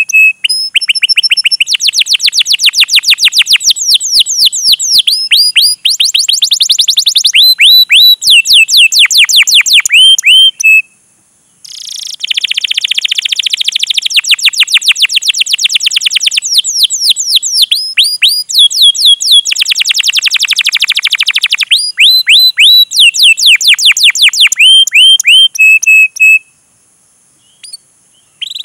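Domestic canary singing: long runs of fast, high-pitched repeated chirps and rolling trills. The song breaks off briefly about eleven seconds in and again near the end.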